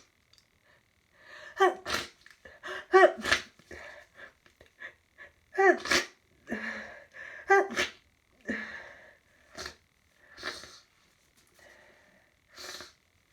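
A person's hay fever sneezing fit: four sneezes in quick succession, each a rising, pitched 'ah' breath-in ending in a sharp, explosive 'choo'. Several quieter, breathy bursts follow, spaced about a second apart.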